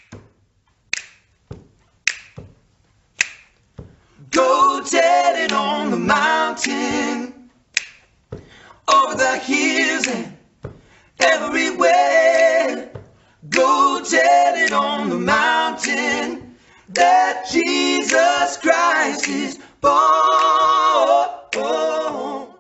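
Finger snaps keeping time about once a second. About four seconds in, three men's voices join, singing together in short phrases over the snaps with little or no accompaniment.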